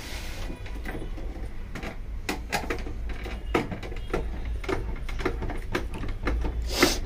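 Irregular plastic clicks and knocks as a screwdriver is worked into the white plastic casing of a Kent Pearl RO water purifier, with a brief scrape near the end.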